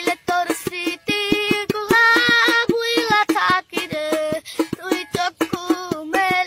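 A song: a high voice singing a held, wavering melody over a quick, steady percussion beat.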